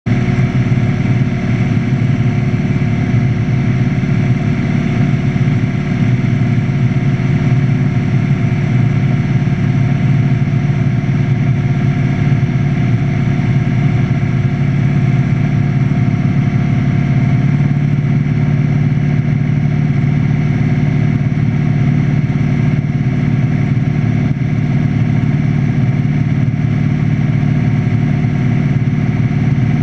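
Light aircraft engine and propeller droning steadily, heard inside the cabin, with the low note shifting slightly a little after halfway.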